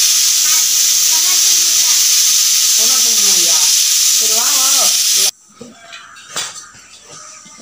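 Hot oil sizzling steadily as puris deep-fry, with faint children's voices under it. The sizzle cuts off suddenly about five seconds in, leaving a quiet room with a single knock.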